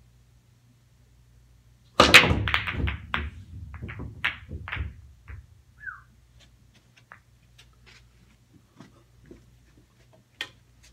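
Pool break shot: about two seconds in, a sharp crack as the cue ball smashes into the full fifteen-ball rack, then a quick flurry of ball-on-ball clicks and cushion knocks with balls rolling on the cloth. It dies away over about three seconds into scattered light clicks as the balls settle.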